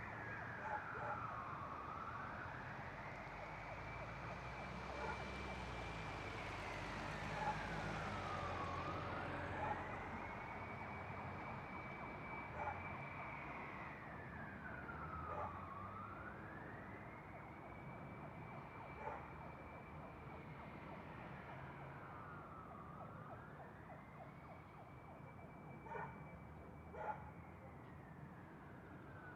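Distant emergency-vehicle siren in a slow wail: it rises, holds its high note for a few seconds, then falls, about once every seven seconds, over a low background rumble. It grows a little louder and then fades as it passes. A few short knocks sound, two close together near the end.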